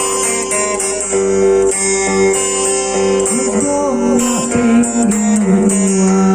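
Acoustic guitar playing a Lampung song, picked and strummed, with a few notes that bend and waver in pitch in the middle.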